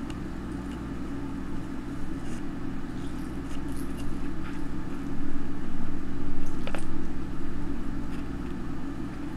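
Steady low mechanical hum with a slow pulsing beat, louder for a couple of seconds past the middle. A few faint small clicks and taps come from hands pressing wet hair strips onto a plastic board.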